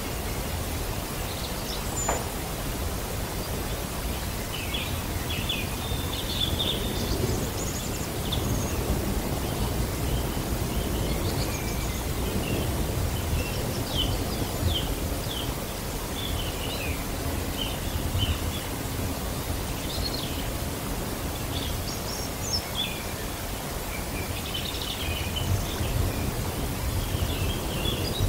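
Steady background hiss and low rumble, with many short, high chirps scattered throughout.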